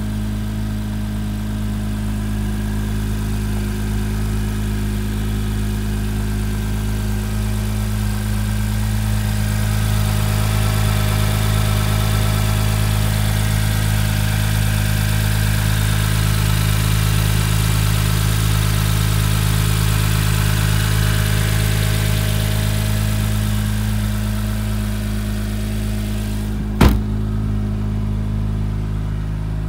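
The 2017 Acura NSX's twin-turbocharged 3.5-litre V6 idling steadily, a little louder in the middle. A single sharp click near the end.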